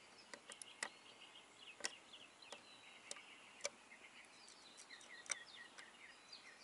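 Near silence with faint, irregular clicks of voltmeter probe tips tapping fuse-panel pins while checking for a live 12-volt feed, and no reading found. Faint bird chirps in the background.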